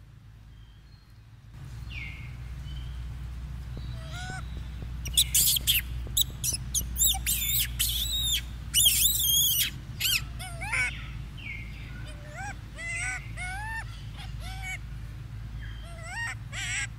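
Young macaque screaming in distress: a run of loud, piercing shrieks about five seconds in, then shorter rising-and-falling squeals repeated over several seconds, above a low steady rumble.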